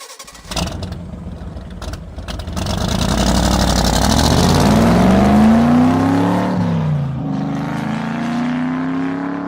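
Car engine accelerating: its pitch climbs for a few seconds, drops abruptly about seven seconds in as at a gear change, then climbs again. A few sharp clicks come before it.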